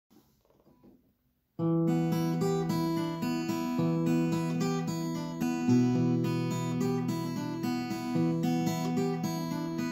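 Steel-string acoustic guitar playing a picked chord accompaniment in E minor. It starts about a second and a half in, after near silence.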